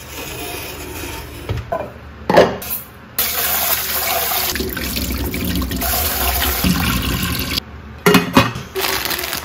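Kitchen tap running into an aluminium rice pot in a stainless steel sink as rice is rinsed by hand, a steady splashing that stops abruptly about three-quarters of the way through. A few sharp knocks come before it, and quick clinks of the metal pot and lid follow.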